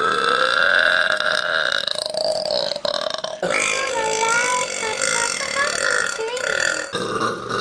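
Women burping: long, drawn-out belches with a wavering pitch, one after another, with abrupt changes from one burp to the next about 3.5 s and 7 s in.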